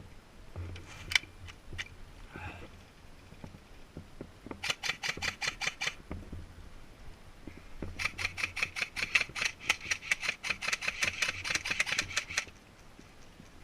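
Airsoft rifle firing two strings of rapid shots at about seven or eight a second: a short string around five seconds in and a longer one of about four seconds later. A single sharp click comes about a second in.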